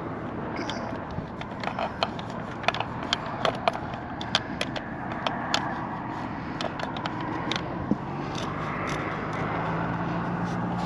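Scattered sharp clicks and light knocks from hand work on a solar combiner box, its cover being closed and its wiring handled, over a steady background rush.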